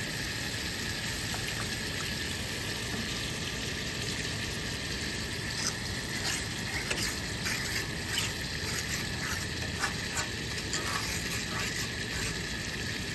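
Rice sizzling in a cast iron skillet just after water has been added. From about five and a half seconds in, a metal utensil stirs it with repeated light clicks and scrapes against the pan.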